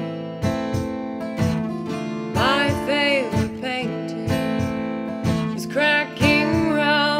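Two acoustic guitars strummed in a steady rhythm, with a woman's voice singing a melody from about two seconds in and again near the end.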